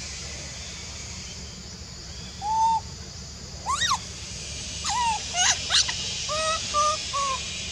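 Short clear-pitched animal calls: a single arched note, then one sharply rising call, a cluster of calls, and a quick run of short level notes near the end, over a steady high hiss.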